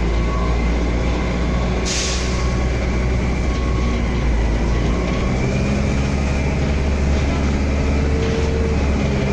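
Cabin sound of a DAF SB120 Wright Cadet single-deck bus under way: a steady engine and road rumble, with a short hiss about two seconds in.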